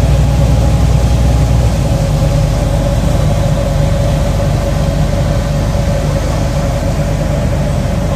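Boat engine running steadily, a low drone with a steady mid-pitched hum over it.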